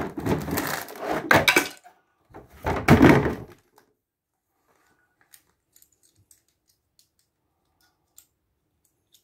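Plastic bags of DUPLO bricks and loose plastic bricks clattering and rustling out of a cardboard box as it is tipped over, in three loud bursts over the first three and a half seconds. After that only faint clicks of bricks being handled.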